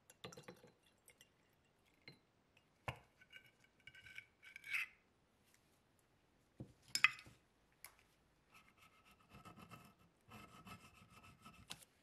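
Metal Zippo lighter parts clink and knock against a glass jar as they are lifted out with pliers, with a sharper ringing clink about seven seconds in. From about two-thirds of the way through, a tool rasps and scrapes repeatedly over the metal lighter case, scraping off old glue.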